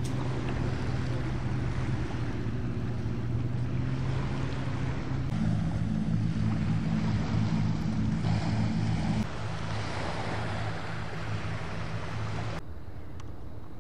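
Boat engines droning over the water: a steady low hum with a hiss over it. The hum shifts higher about five seconds in and drops back about nine seconds in.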